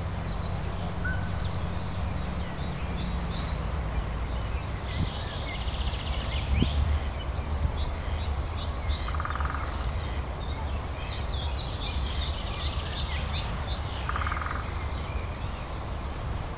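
Small songbirds chirping over a steady low rumble, with two short buzzy calls about nine and fourteen seconds in.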